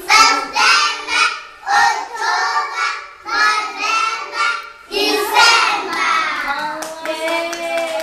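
A group of young children singing a months-of-the-year song together, in short phrases with brief breaks between them.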